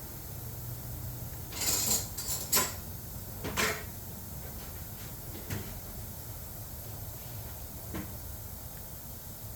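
Tools being rummaged through: a cluster of short clatters and knocks about one and a half to four seconds in, then two fainter knocks later, over a steady low background hum.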